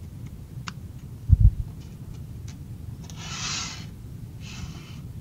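Workbench handling noise while sorting small machine screws: a few light ticks of screws and parts, a dull bump about a second and a half in, then two short rubbing hisses as the screws are slid across the paper-covered bench.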